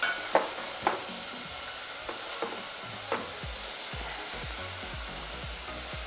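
Food sizzling steadily in a hot pan, with a few sharp knocks of a utensil against the pan in the first three seconds.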